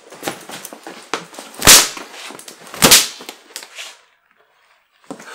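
Bullwhip cracking twice, two sharp loud cracks a little over a second apart, amid lighter clicks and rustling.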